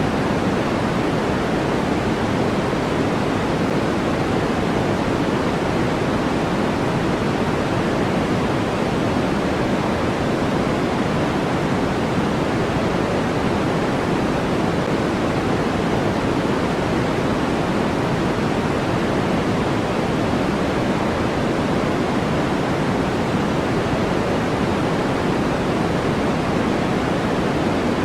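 Steady generated noise for sleep, sold as white noise, running unchanged at an even level. Its sound sits mostly in the low and middle range, so it is deeper than a bright hiss.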